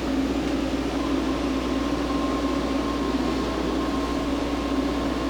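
Miyano BNE-46S CNC lathe running with a steady hum, and about a second in a faint, steady whine joins it as the turret's live-tool drive engages and spins with no tool mounted.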